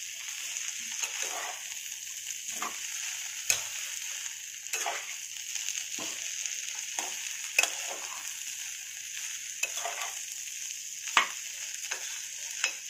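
Rice, vegetables and spices frying in oil and ghee in a pressure cooker pot with a steady sizzle while they are stirred, the utensil scraping and clicking against the pot every second or so, with a few sharper knocks. This is the rice being roasted with the masala and salt mixed through, before water goes in.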